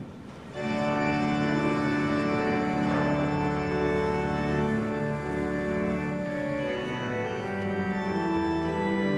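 Organ music that starts about half a second in, playing slow, held chords that move from one to the next.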